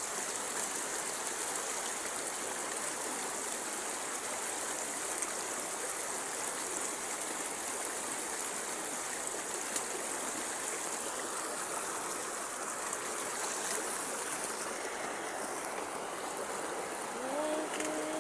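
Steady rush of flowing stream water, the current running strong. A held pitched tone comes in near the end.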